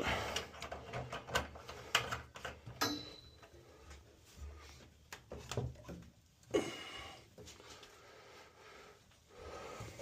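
Scattered clicks and knocks of hands working brass ball valves and handling the copper piping around a boiler's zone circulator pumps, with a sharper knock about six and a half seconds in.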